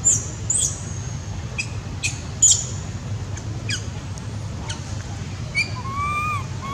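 Baby macaque making sharp high squeaks in the first few seconds, then from about six seconds a run of short whistle-like coo calls, each rising and falling, repeating less than a second apart.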